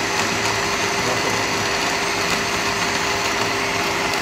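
Electric countertop blender running steadily, its blades churning a thick fruit mixture in the plastic jar, with an even motor whine.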